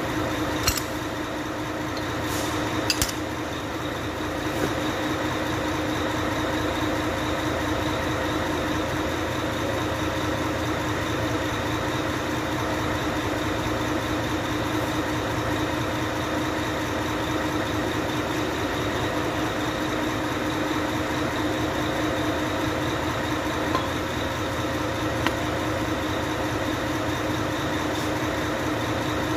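Steady mechanical hum of running machinery, with a few sharp metallic clinks in the first three seconds as truck gearbox bearings and gears are handled.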